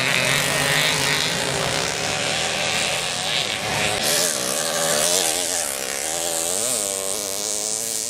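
Small two-stroke moped engines running at race speed. From about halfway, one engine close by revs up and down again and again, its pitch rising and falling with the throttle.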